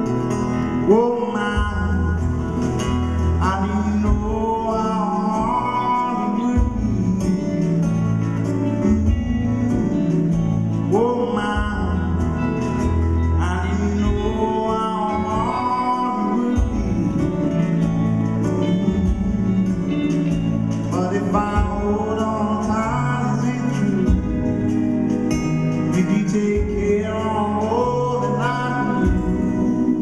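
Live band music heard from the audience in a concert hall: a male voice singing over acoustic guitar, electric guitars and drums.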